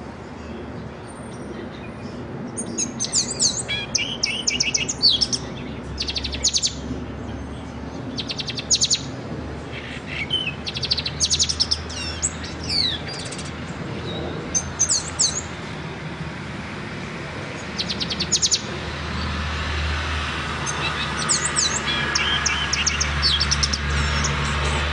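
Caged pet songbird singing: short bursts of fast, high trills and chirps repeated every second or two. A low rumble swells underneath near the end.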